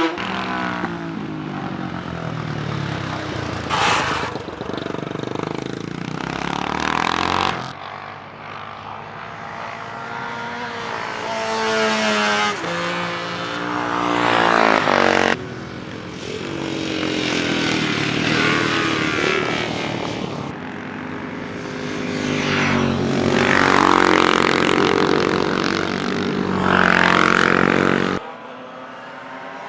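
Classic racing motorcycles at speed, engines revving hard, their notes rising and falling in pitch as they pass by one after another. The passes come as separate segments, several of them cutting off suddenly.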